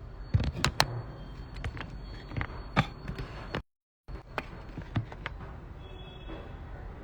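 Sharp clicks and knocks of small tools being handled on a repair bench, several in the first second and a few more spread after, over a low steady hum. The sound drops out completely for half a second a little past halfway.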